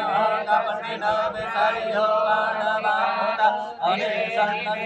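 Vedic mantras chanted in Sanskrit during a Hindu puja, a steady recitation with a short break for breath about three and a half seconds in.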